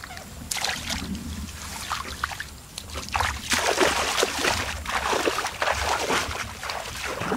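Water splashing and sloshing in irregular strokes, growing busier and louder about three seconds in.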